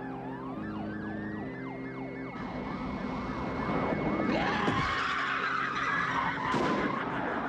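Police car sirens wailing and yelping, several overlapping, over the noise of speeding cars. The sirens and engine noise grow louder about four seconds in.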